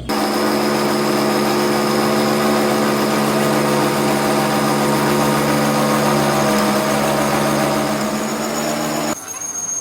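A workshop machine running steadily, a hum of several even tones over a hiss, starting abruptly and cutting off suddenly about nine seconds in.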